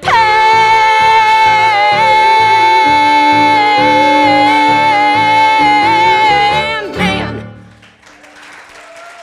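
A woman singing the final note of a musical theatre song, held for about seven seconds over a band with a steady pulsing bass. The music ends, and applause follows near the end.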